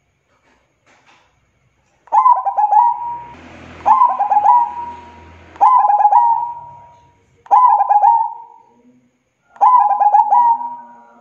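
Zebra dove (perkutut) singing its cooing song: five phrases about two seconds apart, starting about two seconds in, each a quick run of clipped notes ending in a held coo.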